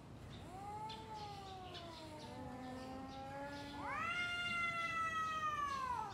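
Two cats in a face-off yowling at each other: the drawn-out threat caterwauling that comes before a cat fight. A long, low, wavering yowl runs for about three seconds. Then, about four seconds in, a louder, higher yowl is held and slides down at the end.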